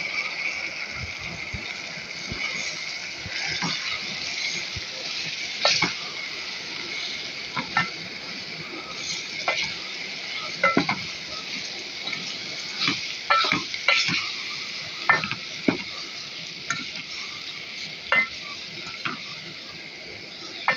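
Minced meat (keema) sizzling steadily as it fries in its spice masala in a small metal pot, while a wooden spoon stirs it and knocks and scrapes against the pot at irregular intervals.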